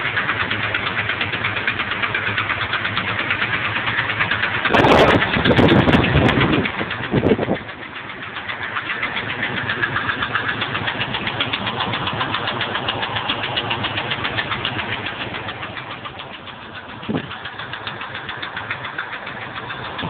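1997 Ford F-150 engine running with a loud, rapid, steady knock from the passenger side that a complete tune-up has not cured; the knock keeps time with engine speed. A few brief louder bumps come about five to seven seconds in.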